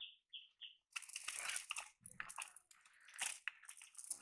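Rustling and crackling of a cast net being pulled and handled by hand as fish are worked out of the mesh, with irregular sharp crunches. A bird chirps three times in the first second.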